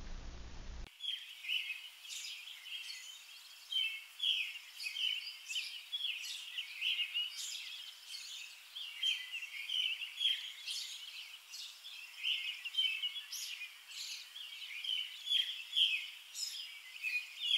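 Several birds chirping and singing, a dense chorus of short high calls that starts about a second in.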